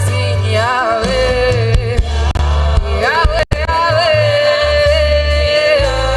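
Live gospel worship music: a wordless sung melody sliding between notes over a band with a heavy bass line, holding one long note in the second half. The sound drops out for a split second about halfway through.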